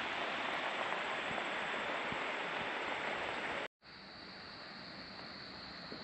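Steady rushing outdoor noise that stops abruptly about two-thirds of the way through. It comes back quieter, with a steady high-pitched whine on top.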